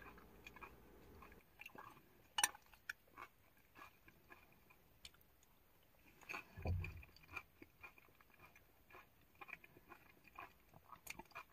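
Faint close-up chewing and crunching of a mouthful of cooked onions and peppers, with scattered small mouth clicks and a short low sound about halfway through.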